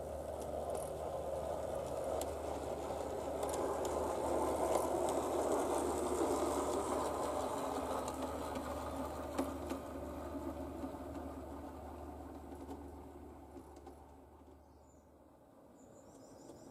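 Bachmann G scale Peter Witt streetcar running on garden railway track: a steady rumble of wheels and motor with a low hum and a few faint clicks. It grows louder as the car passes close, about five seconds in, then fades away.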